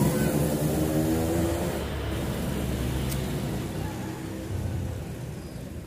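A motor vehicle's engine passing by and fading away, loudest at the start and dying out within the first two seconds. A light click comes about three seconds in.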